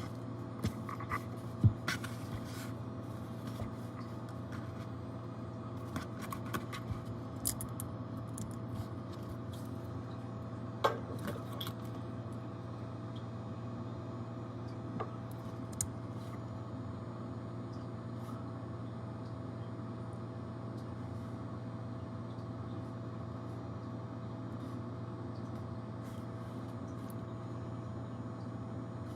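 Steady low machine hum, with a few light clicks and taps scattered through the first half; the sharpest come about two seconds and eleven seconds in.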